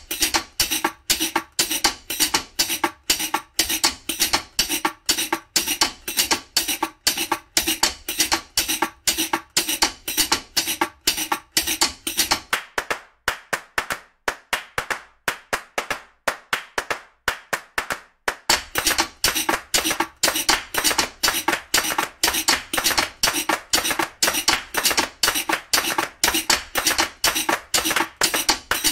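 Percussive background music: a steady beat of sharp clicks, about three or four a second, with the bass dropping out for several seconds in the middle.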